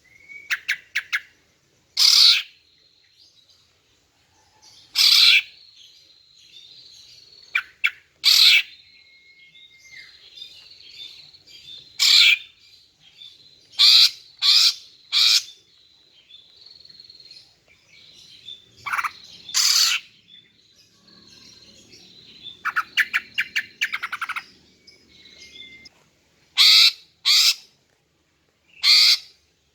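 Female cucak ijo (green leafbird) calling: about a dozen short, loud, harsh notes at irregular intervals, with softer twittering and a few brief thin whistles between them. It is the female's call, used to lure a male into answering and singing.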